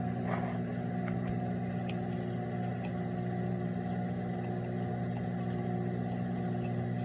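Microwave oven running mid-cycle with a steady hum.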